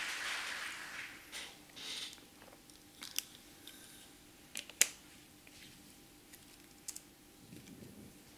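Applause from a hall audience dying away over the first second or so, then a quiet hall with a few scattered clicks and knocks, the loudest nearly five seconds in.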